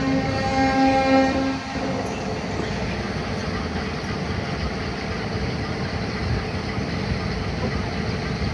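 A train horn sounds with a brief break and stops about two seconds in, followed by the steady running noise of the train on the rails.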